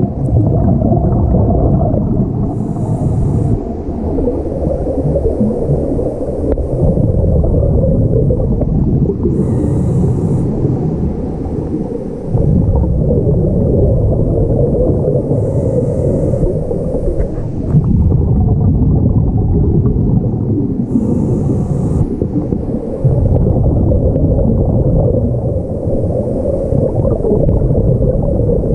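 Underwater ambience heard through a GoPro's microphone: a loud, steady muffled rumble, broken about every six seconds by a short bubbling hiss from a scuba diver's regulator exhaling.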